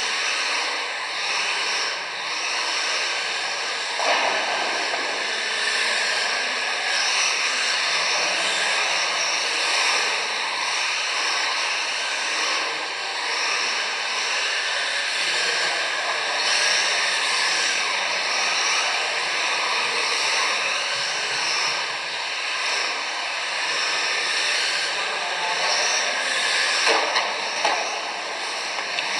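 Electric 1:10 radio-controlled touring cars racing: a steady, high-pitched whine of the motors mixed with the hiss of their tyres on the track.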